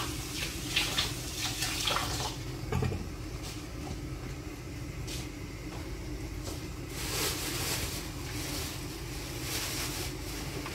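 Hands pulling and stretching oiled semolina dough thin across a stone countertop: irregular soft, wet, sticky sliding and slapping sounds, busiest at the start and again toward the end, over a steady low hum.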